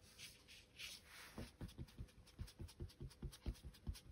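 Foam ink-blending tool dabbed quickly on paper, faint soft pats at about five to six a second that begin about a second and a half in.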